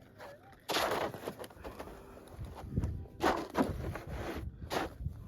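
Handfuls of dug-up dirt and gravel being scraped and tipped in several short gritty bursts while a dug detector target is searched for in the soil. A bird calls briefly near the start.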